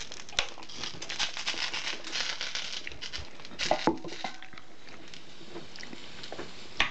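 Sausages frying in a skillet, the hot fat crackling and spitting, thinning out after the first few seconds. A couple of light knocks sound in the middle and near the end.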